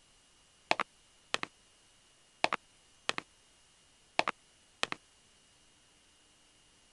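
A series of sharp double clicks: six of them, in three pairs, each click doubled and the pairs about a second and three-quarters apart.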